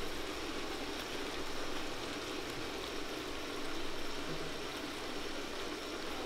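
Potatoes, aubergine, spinach and tomato sizzling steadily in oil in a large aluminium pot.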